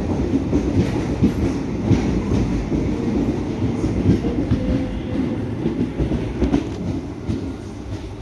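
Express train's passenger coaches rolling past, wheels clattering over the rail joints with a steady low rumble that eases off slightly near the end.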